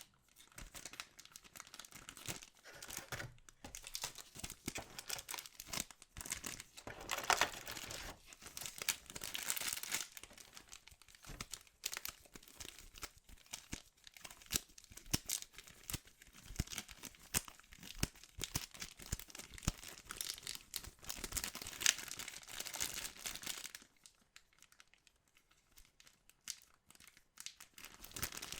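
Trading card packaging crinkling and tearing as the box and packs are handled and opened by hand, with a quieter lull near the end.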